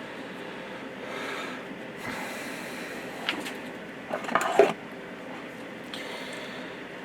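Hand work on hydraulic cylinder parts during a seal replacement: rubbing and scraping with a few light clicks, the loudest burst of scraping about four and a half seconds in, over a steady background hum.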